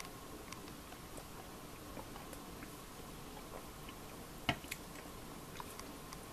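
Quiet room tone with a faint steady hiss and scattered light ticks, with one sharper click about four and a half seconds in and a smaller one just after it.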